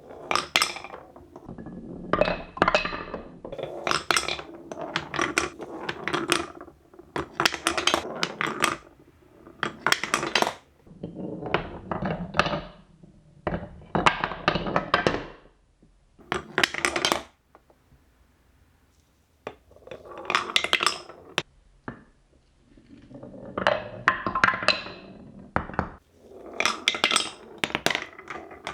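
Marbles rolling and clattering down a Wonder World Trix Track marble run. The sound comes in bursts of rapid clicks and rattles, with a few short quiet pauses between runs.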